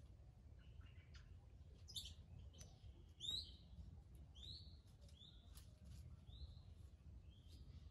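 Faint chirping of small birds: a string of short, high chirps, the loudest about three seconds in, with a few brief clicks between them.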